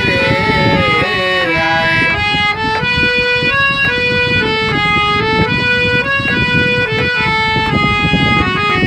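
Bengali folk (Baul-style) music: a melody of short held notes stepping up and down over a busy percussion beat, with a sliding, bending line in the first second or two.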